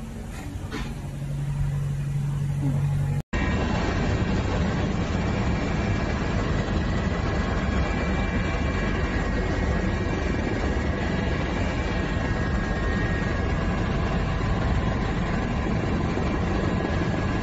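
A low steady hum for about three seconds, then, after a sudden cut, the steady drone of aircraft engine and airflow noise heard from inside the cabin, with faint steady whines over it.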